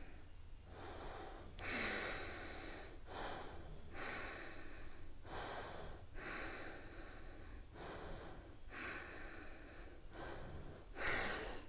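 A woman breathing deeply and evenly while she holds a lunging yoga twist after a burst of quick step-ins. There are about ten breaths in a row, with longer breaths alternating with shorter ones.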